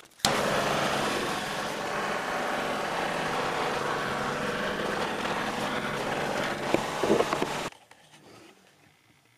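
Handheld propane torch burning steadily with a flat rushing hiss as its flame heats the steel clamp bar to melt the HDPE strips together. It starts abruptly just after the start and cuts off abruptly near the end, with a couple of small knocks just before.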